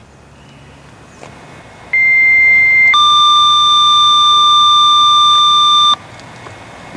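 Dispatch radio paging tones sent to set off the tornado warning sirens. After a faint hiss comes a single steady beep of about a second, then a louder chord of two steady tones held for about three seconds that cuts off sharply.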